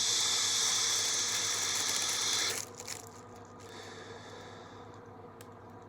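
A steady high hiss for about two and a half seconds that cuts off sharply, then a fainter hiss a second later, with a few light clicks.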